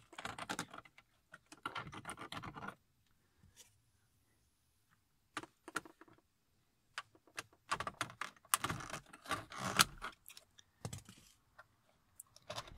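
Hard plastic clicking, rattling and scraping as a BMW E46's dashboard light switch unit is pried and pulled out of its housing with a plastic trim tool. The clicks come in two dense spells with a brief quiet gap between them.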